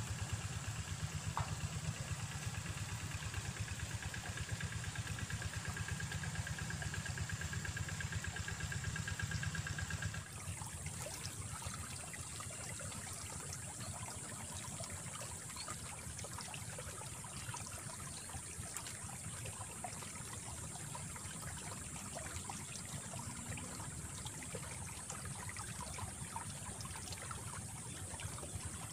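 A steady low engine-like hum with a faint high whine runs for about ten seconds, then cuts off abruptly. After that only a steady high hiss and a faint trickle of water in the ditch remain.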